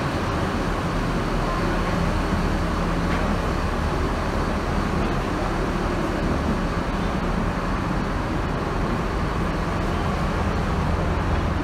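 Steady low rumble and drone of a ro-ro ferry's engines and machinery, running evenly without change.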